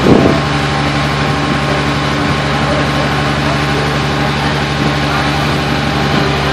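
Steady low mechanical hum, like an idling engine, running unchanged throughout, with one brief louder sound in the first moment.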